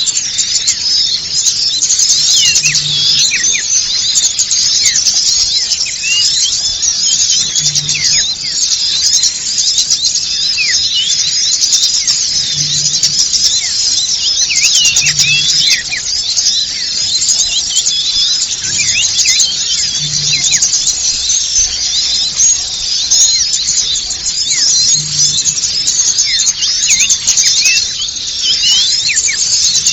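A dense, unbroken chorus of many small songbirds chirping and twittering over one another, in a recorded lure call used to draw small birds in for trapping.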